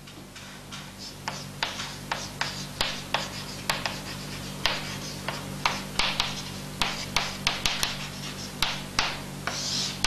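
Chalk writing on a chalkboard: an irregular run of short scratches and taps as capital letters are written, with a longer stroke near the end.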